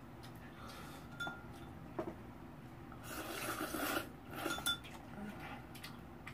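Eating utensils clinking against a bowl of noodle soup, a few light clicks, with two longer wet eating sounds about three and four and a half seconds in.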